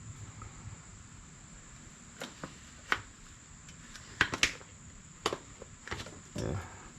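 Scattered sharp clicks and light knocks, about ten in all, starting about two seconds in, as parts and tools are handled during work on the generator engine's valves.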